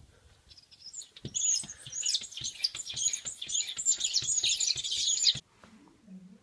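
A cat pawing fast at a glass door: rapid taps of its paws on the glass with high squeaky rubbing, stopping abruptly about five seconds in.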